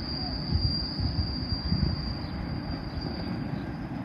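Low rumble of a freight train moving away on the rails, with a thin, steady, high-pitched wheel squeal that fades out near the end.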